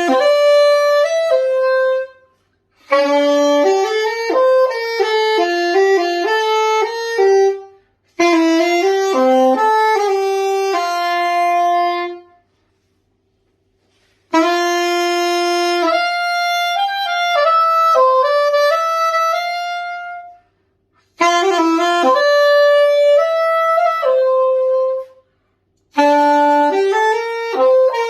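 C.G. Conn curved soprano saxophone, freshly overhauled, played with a Hollywood Winds Tribute VS-7 mouthpiece: an unaccompanied melody in phrases of a few seconds each, separated by short pauses for breath.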